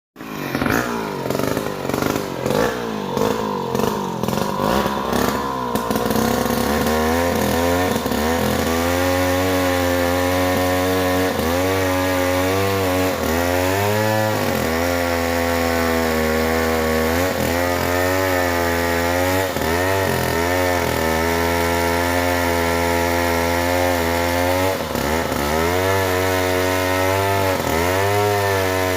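Chainsaw cutting angsana (Pterocarpus) wood. Its engine revs unevenly for the first six seconds or so, then runs steadily at speed in the cut, the pitch dipping briefly several times under load.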